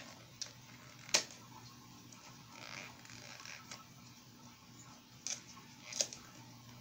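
Small plastic packaging being handled: a few sharp clicks, the loudest about a second in, and a short stretch of soft crinkling around the middle.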